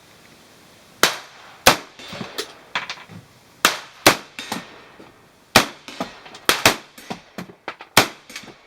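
Semi-automatic gunfire from an M4 carbine: loud single shots at uneven intervals, starting about a second in, with fainter shots between them.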